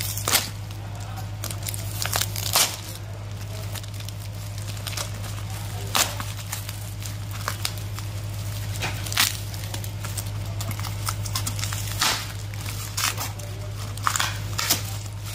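Brown packing tape and paper courier wrapping being torn and crinkled off a parcel by hand, with a sharp rip every few seconds and more rips in quick succession near the end. A steady hum runs underneath.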